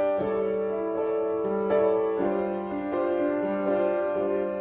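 Upright piano playing the introduction to a song: soft sustained chords that change about once a second, before the voice comes in.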